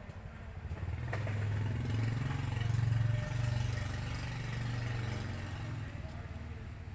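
A vehicle engine's low hum passing by, growing louder to about three seconds in and then fading away.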